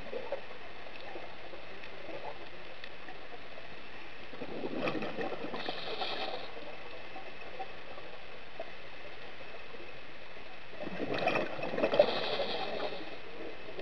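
Scuba regulator breathing underwater: a burst of bubbling exhaled air followed by a short hiss of inhaled air, heard twice, about five seconds in and again near the end, over a steady underwater hiss.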